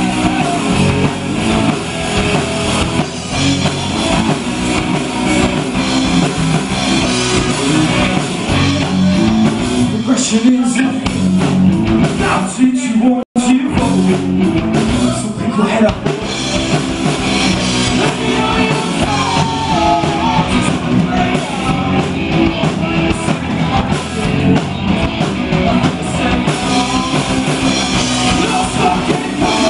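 Live rock band playing a song: guitars, drum kit and a singer, loud and continuous. The sound drops out for a split second about 13 seconds in.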